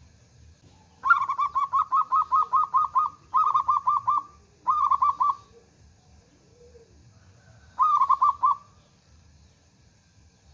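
Zebra dove (perkutut) cooing in rapid staccato runs of repeated notes. A long run of about a dozen notes comes first, then two short runs, and after a pause a fourth short run near the end.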